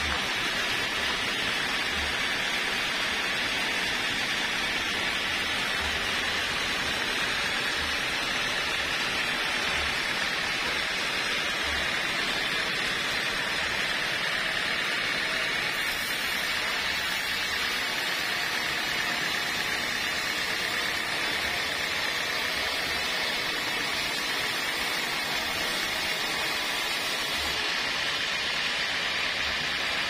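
Band sawmill running, its blade cutting lengthwise through a waru gombong log: a steady, even rushing hiss.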